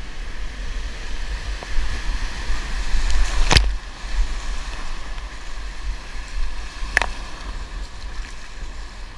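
Whitewater of an artificial rapids channel rushing and churning around a kayak, heard from a camera on the bow with a heavy low rumble of water and wind buffeting it. Two sharp knocks, about three and a half seconds apart, stand out; the rush is louder in the first half and eases a little after the first knock.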